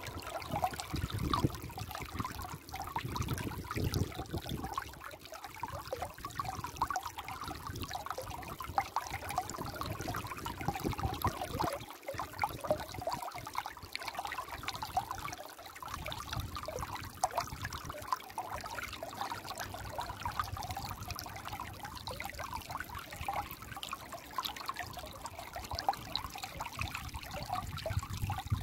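Shallow stream flowing over rocks and pebbles: a steady trickling, babbling rush of water.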